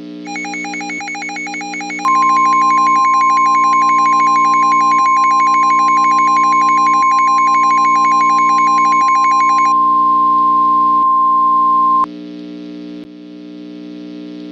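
NOAA Weather Radio warning alarm tone: one loud steady tone, starting about two seconds in, held for about ten seconds and cutting off sharply. Rapid two-tone beeping runs under it from the start until shortly before the tone ends. A steady synthesizer drone with a soft pulse about once a second plays underneath.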